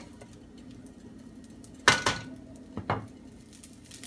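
Kitchenware clattering beside the stove: one sharp knock with a brief ringing tone about halfway through, then two quick knocks close together about a second later, over a faint steady sizzle from the frying pan.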